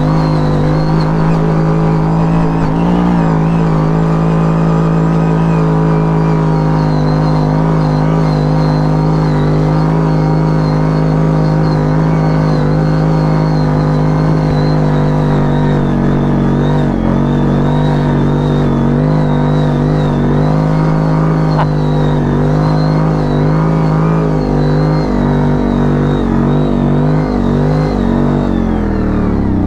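CFMoto 1000 ATV's V-twin engine running hard at steady, high revs while climbing with two riders aboard, with a thin high whine above it. The revs waver briefly a few times near the end.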